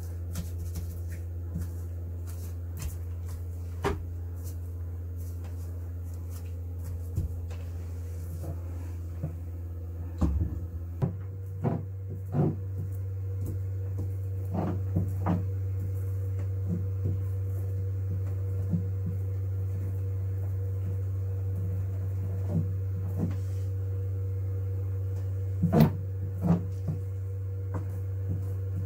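Steady low hum of a running machine, shifting slightly in pitch about ten seconds in, under scattered knocks, clicks and scrapes of hand tools worked against a fibreglass boat hull in a cramped space; two sharp knocks near the end are the loudest.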